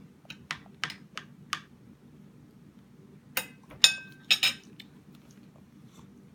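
Sharp taps and clacks of a baby's plastic spoon knocking on a hard tabletop. A few light taps come in the first second and a half, then a louder cluster of knocks comes between about three and a half and four and a half seconds in.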